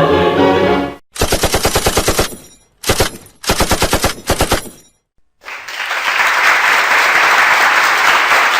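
Machine-gun fire sound effect: a burst of about a second at roughly ten shots a second, then three shorter bursts. From about five seconds in, a steady rushing noise takes over.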